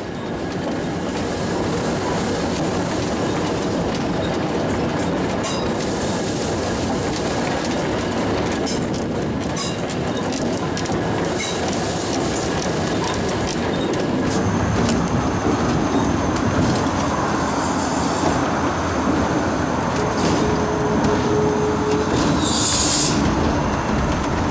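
Streetcar rolling along rails, a steady rumble with irregular clicks of the wheels over the track, and a brief high wheel squeal near the end.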